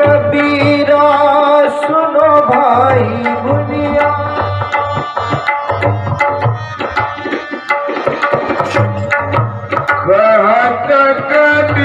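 Harmonium and tabla playing a Hindustani classical piece in raag Bhairavi, held reed chords over a steady rhythm of tabla strokes. A voice sings gliding phrases over them about two seconds in and again near the end.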